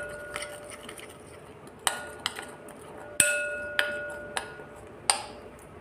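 Metal spoon clinking against the sides of a glass bowl while stirring a thick masala paste. About half a dozen irregular taps, each leaving a short ringing tone from the glass.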